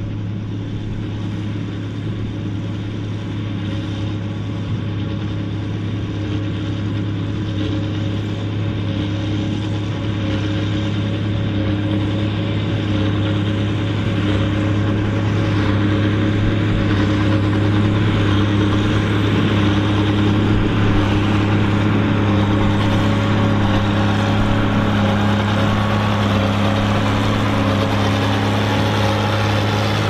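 Ford TW-30 tractor's six-cylinder turbo diesel engine running steadily under load while pulling a working New Holland 4860S big square baler, growing gradually louder as it approaches.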